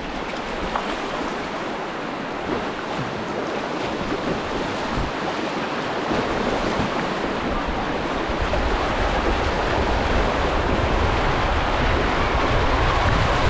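Rushing creek water, a steady hiss that slowly grows louder, with wind buffeting the microphone as a low rumble that strengthens in the second half.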